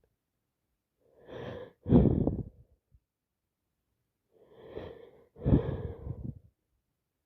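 A woman with a head cold sneezing twice, wet sneezes about three and a half seconds apart, each one a sudden loud burst straight after a short in-breath.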